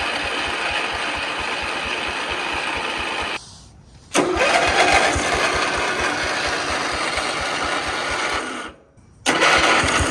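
Riding lawn mower engine being cranked on its electric starter in long bursts of four to five seconds, stopping briefly twice and starting again, with an even rapid pulsing throughout.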